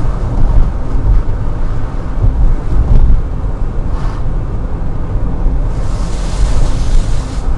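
Loud, steady low rumble with a hissing swell near the end: the unexplained strange noise that keeps recurring in the mornings.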